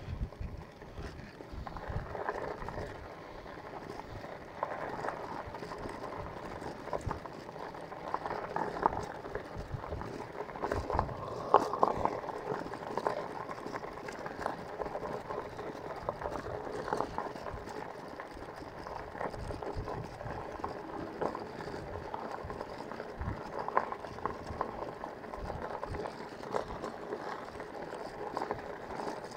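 Bicycle tyres rolling over a loose gravel road: a steady crunching hiss peppered with many small clicks and knocks.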